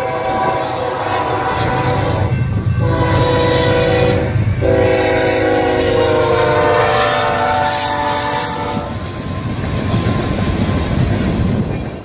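BNSF freight locomotive's air horn sounding for a road crossing in long blasts, broken briefly twice and held on the last blast until about nine seconds in, over the low rumble of the diesel locomotive. After the horn stops, the rolling clatter of the train's cars passing takes over.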